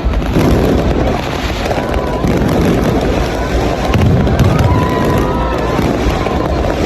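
Aerial fireworks display at its peak: a dense, continuous barrage of booming and crackling shell bursts with no pause.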